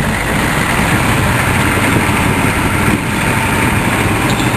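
Chevrolet K5 Blazer's 6.2 diesel engine running steadily as the truck pushes snow with its plow, a continuous loud rumble with no breaks.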